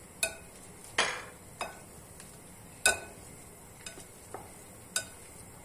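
Hand-held metal potato masher pressing boiled potatoes in a glass bowl, with about seven sharp, irregular clinks and knocks of the masher striking the bowl.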